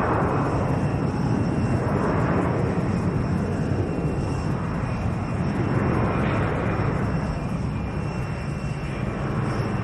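Fighter jet engine running steadily: a deep rumble under a thin high whine, easing off slightly in the second half.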